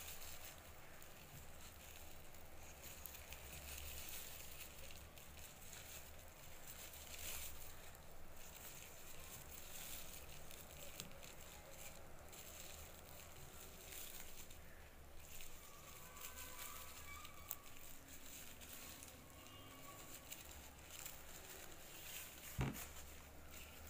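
Plastic bag strips crinkling and rustling faintly as they are worked with a plastic crochet hook, in small irregular crackles over a low steady hum. One sharp knock near the end.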